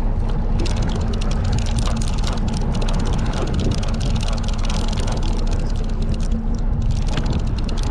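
Fishing boat's engine running steadily with a low hum, with rough noise over it.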